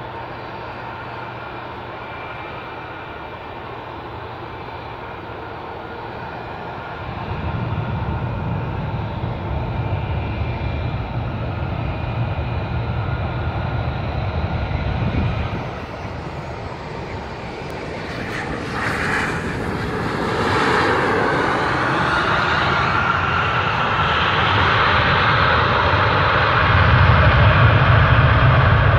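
Jet airliner landing: steady engine whine on final approach, then after touchdown a broad roar swells about two thirds of the way in and stays loud as the aircraft slows on the runway, typical of reverse thrust.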